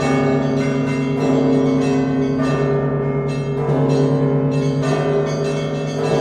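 Russian Orthodox church bells ringing a festal peal: lower bells struck about every second and a quarter under quick strokes of many smaller bells, all ringing on together.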